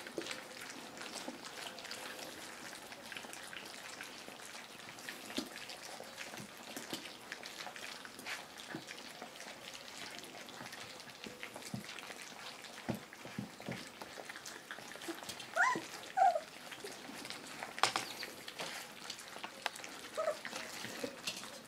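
A litter of puppies eating from shared bowls: a steady wet crackle of lapping, chewing and smacking. A few short high squeaks come from a puppy about fifteen and a half seconds in, and again near the end.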